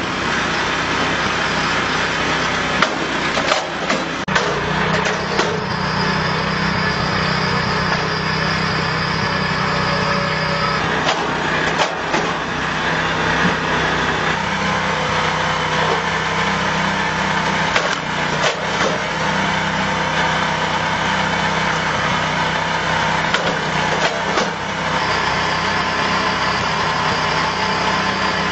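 Small petrol engine of a log splitter running steadily, with sharp cracks and knocks every few seconds as logs are split on the wedge.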